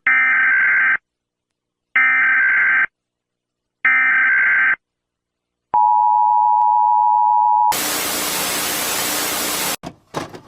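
Emergency Alert System broadcast signal: three one-second bursts of screechy data tones (the SAME header), each a second apart. Then the two-tone attention signal sounds for about two seconds, followed by about two seconds of loud static hiss that cuts off suddenly, leaving faint crackles.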